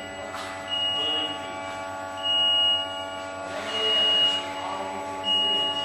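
Warning beeper of a 19-metre tracked spider lift sounding while the machine works: four short, high, steady beeps, about one every second and a half. Under them runs a steady hum.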